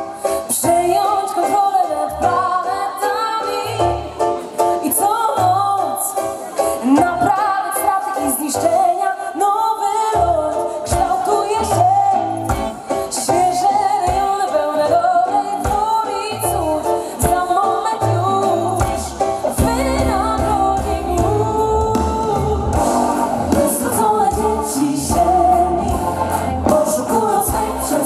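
Live band with a vocal group singing, a lead voice and several backing singers over bass and drums; the bass grows steadier and fuller past the middle.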